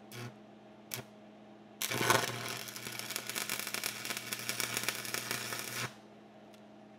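Electric arc welding on steel: a couple of brief tack welds near the start, then a continuous crackling weld for about four seconds that stops abruptly.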